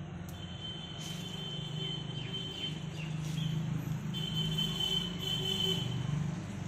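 Outdoor street background: a steady low hum of distant road traffic, with a thin high tone that comes and goes and a few short falling chirps.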